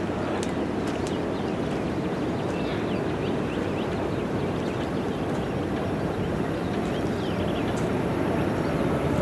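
Diesel-electric locomotive of a Chihuahua–Pacific passenger train approaching, its engine rumble steady and slowly growing louder.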